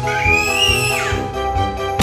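Background music with a steady beat. Over it, in the first second, a high gliding tone rises and then falls away.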